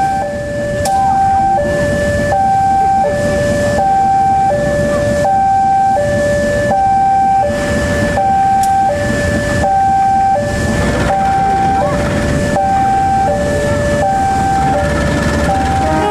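Level crossing warning alarm sounding a repeating two-tone high-low chime, about one pair every second and a half, over the low rumble of a CC 203 diesel locomotive passing slowly.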